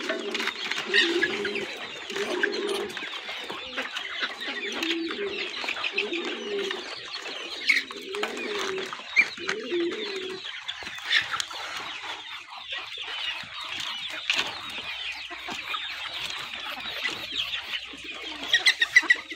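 A flock of young Golden Misri chickens clucking and chirping as they feed together at a grain tray, with many small pecking clicks. A low, repeated cooing call runs under them for about the first half and then stops.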